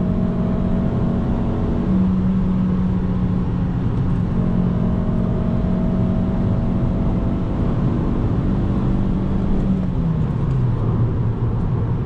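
Fiat Punto's naturally aspirated 1.4-litre petrol engine droning steadily inside the cabin at cruising revs, over constant road rumble. About two seconds in the pitch steps up slightly, and near the end it falls as the revs drop.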